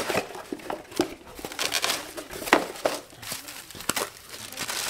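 Packing wrap and a cardboard box rustling and crinkling as parts are unwrapped by hand, in irregular crackles with one sharp, louder rustle about two and a half seconds in.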